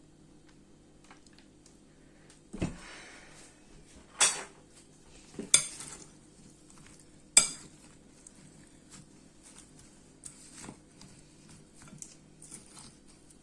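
Cutlery knocking and clinking against a dish as a dressed salad is mixed: a dull knock, then three sharp ringing clinks a second or two apart, then lighter taps.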